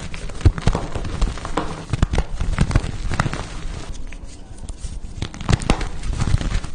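Blocks of pasted (reformed) gym chalk being crushed: a dense run of crunchy cracks and crumbles that eases off briefly about four seconds in, then picks up again.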